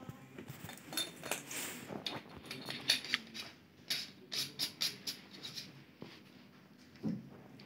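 Hands handling a metal ophthalmoscope handle and its rechargeable battery pack over a plastic case: a run of small clicks, taps and scrapes, busiest from about one to six seconds in and dying down near the end.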